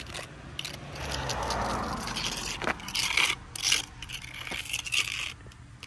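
Small metal trowel scraping and smoothing thick asphalt crack-patch paste over a driveway crack, in several short scrapes in the second half. Traffic rumbles past on a nearby busy road about a second in.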